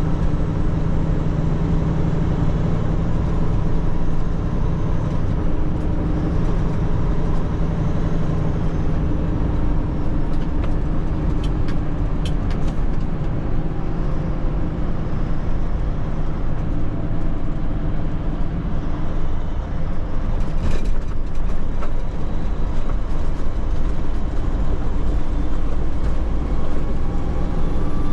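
Tanker truck's diesel engine and road noise heard from inside the cab while driving, a steady hum, with a few brief clicks or rattles near the middle.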